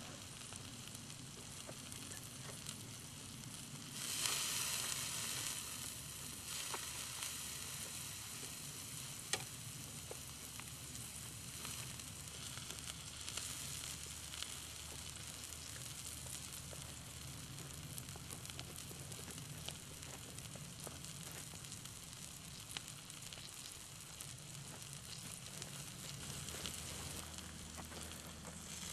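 Thick rib steak sizzling on a steel grill plate over the hot coals of a folding Firebox camp stove: a steady fat-spitting hiss flecked with fine crackles. It swells louder for a couple of seconds about four seconds in, and there is one sharp tick near the middle.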